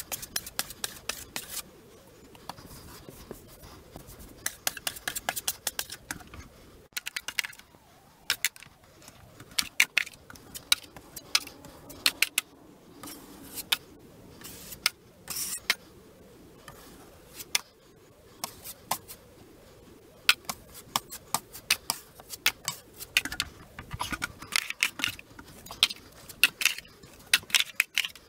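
Sandpaper rubbed by hand over a drywall patch on a ceiling: irregular runs of scratchy strokes and sharp clicks, with short pauses between them.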